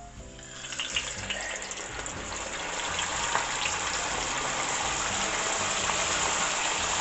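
Flour-dredged whole red tilapia laid into hot oil, the oil sizzling and crackling as it takes the fish. The sizzle starts about half a second in, grows louder over the next few seconds, then holds steady.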